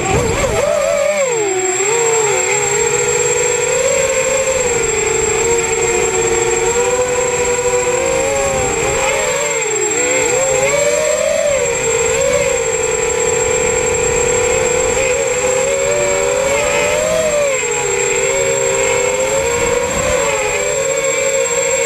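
FPV racing quadcopter's motors and propellers whining as it flies, the several motors at slightly different pitches, rising and falling with throttle and dipping sharply about nine seconds in. A constant thin high whine sits above it.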